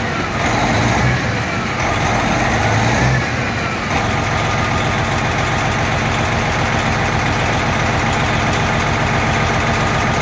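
Scania V8 diesel engine running after a fresh start, lightly revved for the first few seconds with a faint rising and falling turbo whistle, then settling to a steady idle about four seconds in.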